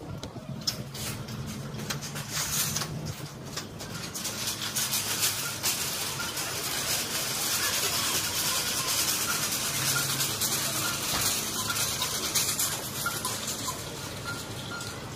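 Footsteps and rustling handling noise from someone walking into a supermarket with a phone, over the store's background noise. A few sharp clicks come in the first few seconds, then a steady hiss that is loudest in the middle.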